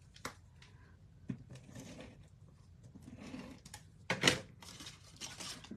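Cardstock being handled and pressed down on a craft mat: soft paper rustling and light taps, with a louder knock about four seconds in.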